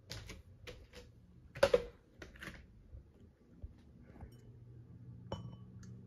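Irregular clicks and knocks, the loudest about a second and a half in. From about halfway, the low steady hum of a Harbor Breeze Grace Bay ceiling fan's motor, with one sharp click near the end.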